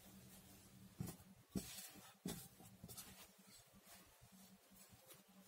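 Faint rustling of sheer organza and lining fabric being handled and spread out by hand, with a few soft brushes between about one and two and a half seconds in.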